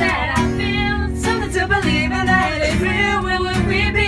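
A small group singing a melody to a strummed guitar, with no clear words.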